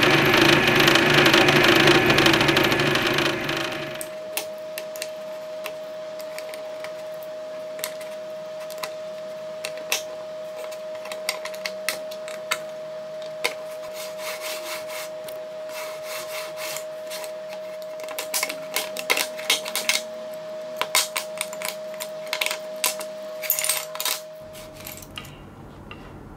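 Drill press motor running, then winding down over about four seconds. After that come many light clicks and knocks from walnut slats of a folding scissor frame being moved by hand, over a faint steady hum that stops near the end.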